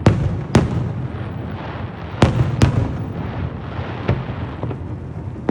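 Aerial fireworks bursting: about five sharp bangs, two of them a close pair past the middle, over a continuous low rumble of further bursts and echoes.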